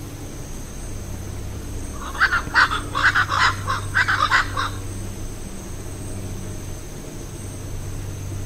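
A rapid run of about a dozen harsh animal calls, starting about two seconds in and lasting under three seconds.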